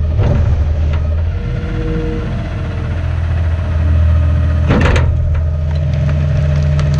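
Garbage truck engine running steadily, with one loud sharp crack about five seconds in as trash is crushed in the hopper.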